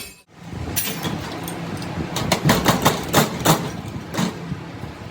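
A steady low machine rumble, with a quick run of sharp knocks from about two seconds in.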